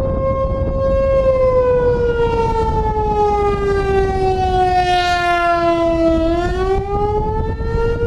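American Signal Corporation T-128 electromechanical outdoor warning siren sounding the wavering attack signal. Its single loud tone holds, sags slowly in pitch for several seconds, then climbs back up near the end.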